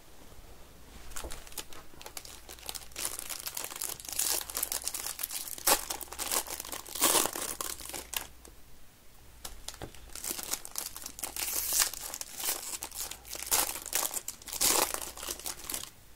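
Foil baseball-card pack wrappers being crinkled and crumpled by hand as the packs are opened, in irregular bursts of crackling with a short lull about halfway through.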